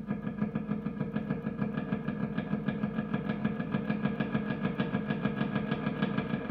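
Background music with a steady low note under a fast, even beat.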